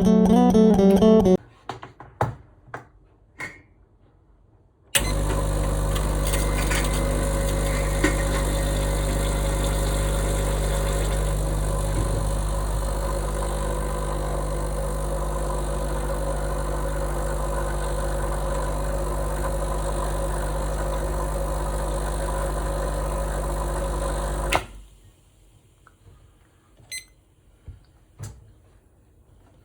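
A few light clicks and knocks, then an electric coffee appliance starts abruptly and hums steadily for about twenty seconds before cutting off suddenly; a few faint clicks follow.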